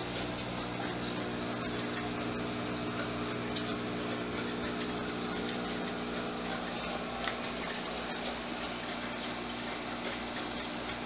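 Aquarium filter and pump running: steady splashing and bubbling of water with a low steady motor hum underneath.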